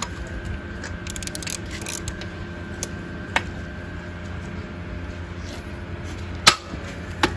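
Workshop work sounds: scattered metal clicks and one sharp knock about six and a half seconds in, over a steady background hum.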